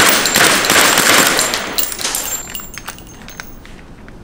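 Replica gun firing a rapid full-auto burst, the shots running together into one loud rattle that tails off about a second and a half in, followed by a few scattered clicks.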